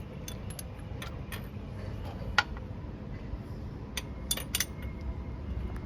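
Hand tools clinking and knocking against metal engine parts during engine work: a string of separate sharp metallic clicks, the loudest about two and a half seconds in and a few more close together near the end, over a steady low rumble.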